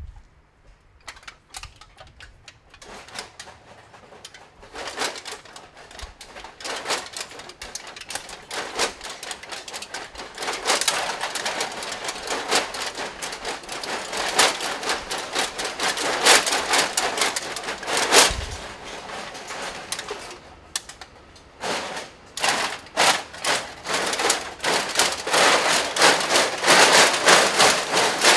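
Crushed aluminium drink cans covering full-body costumes clattering and clinking against each other as the wearers move. Dense irregular rattling that builds from faint to loud, dips briefly about twenty seconds in, then picks up again.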